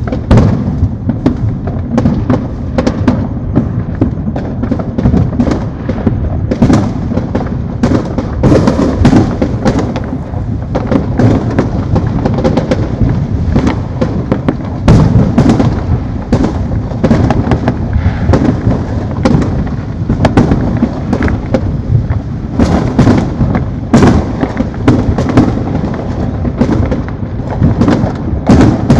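Many fireworks going off at once, without a break: a constant low rumble of overlapping booms, with dozens of sharp cracks and pops on top.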